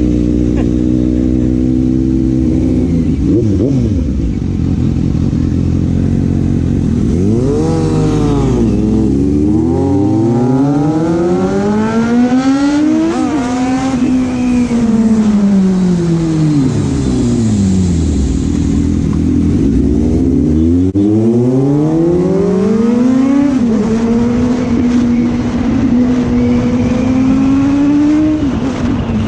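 Suzuki GSX-S750 inline-four motorcycle with a slip-on exhaust, running under way. It holds a steady speed, accelerates with rising pitch and a quick gear change, slows as the pitch falls away, then accelerates through another gear change and settles back to a steady cruise.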